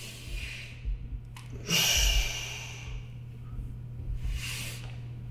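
A man breathing audibly through a banded exercise rep: three breaths, the loudest about two seconds in. A steady low hum runs underneath.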